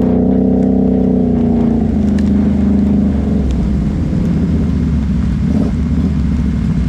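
ATV engine running as the quad is ridden, its note holding steady for the first couple of seconds, then easing off and turning rougher.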